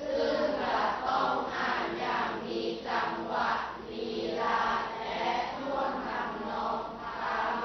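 A class of students reading Thai text aloud in unison, many voices speaking together.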